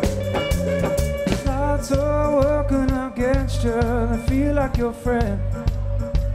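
Band music: a steady drum beat and bass under a held tone, with a wavering melody line from about a second and a half in to just past five seconds.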